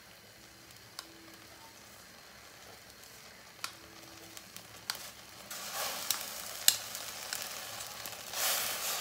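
Water and ghee sizzling in a hot steel kadhai as lumps of jaggery are spooned in. A few light clicks of the spoon against the bowl and pan come through, and the sizzle grows louder from about halfway.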